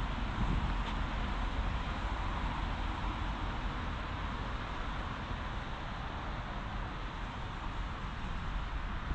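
Steady outdoor street ambience: a continuous wash of distant road traffic with a strong low rumble and no distinct events.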